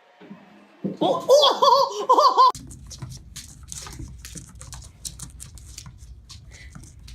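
High-pitched laughter, a string of rising-and-falling giggles, starting about a second in and cutting off abruptly after a second and a half. After it comes a low rumble with scattered light clicks and rustles.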